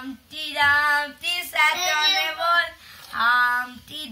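A young child's voice singing a nursery rhyme in three short sung phrases with held notes.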